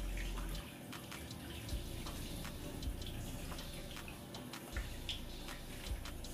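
Kitchen tap running into a stainless steel sink while a gutted whole salmon is rinsed under the stream, with scattered splashes and spatters as the water strikes the fish.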